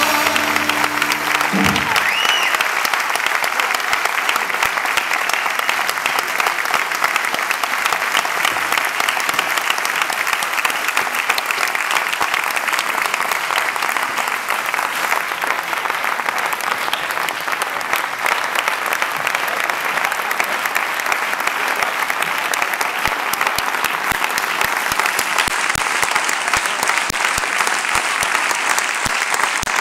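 Audience applauding steadily and warmly; a held closing chord of the brass band's music stops about two seconds in, and the clapping carries on.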